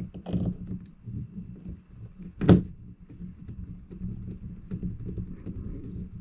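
Hand screwdriver driving a screw through a fitting into a plastic kayak deck: irregular low scraping with small clicks as the screw is turned, and one sharp knock about two and a half seconds in.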